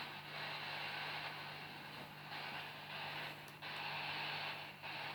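Steady background hiss with a faint low hum underneath, and no distinct sounds.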